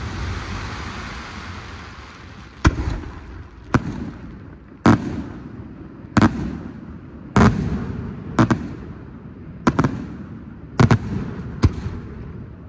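Aerial firework shells bursting: about nine sharp, loud bangs roughly a second apart, two of them nearly together, each trailing off in a rumbling echo.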